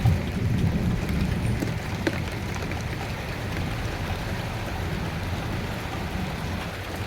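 Steady rain falling with a low rumble of thunder underneath, heaviest in the first second, and a few sharper drop ticks, one about two seconds in.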